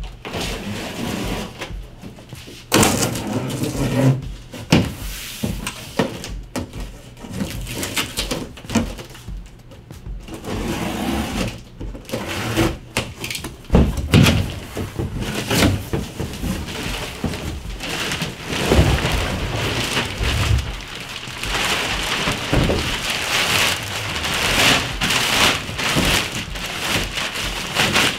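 A large cardboard shipping box being opened by hand: flaps scraping and knocking, with a thump about halfway through. Near the end, plastic wrap crinkles and rustles as it is pulled off the cooler.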